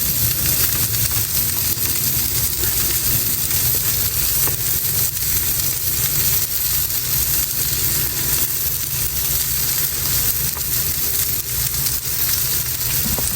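Salmon frying in a pan, sizzling with a steady hiss and occasional small pops.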